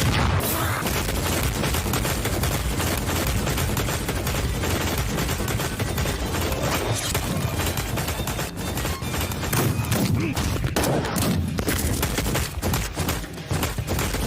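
Anime fight sound effects: a rapid, unbroken barrage of punch and impact hits, one on top of the next, easing briefly about eight seconds in and again near the end.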